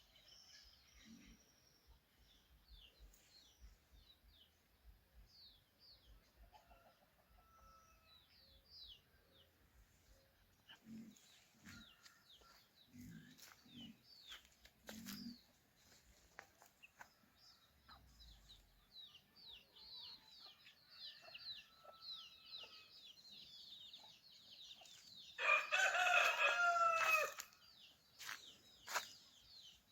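A rooster crows once, loud and about two seconds long, near the end, over small birds chirping steadily throughout.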